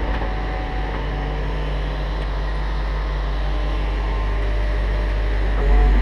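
Steady low rumble of wind buffeting a GoPro camera's microphone out in the open air, stepping up louder near the end.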